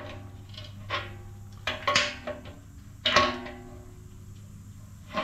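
A wrench knocking against a small steel air tank and its threaded plugs: several sharp metallic clinks, each ringing on briefly.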